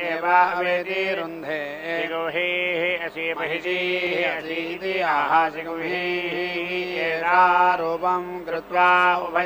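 Melodic Vedic mantra chanting, a voice gliding between held notes over a steady low drone.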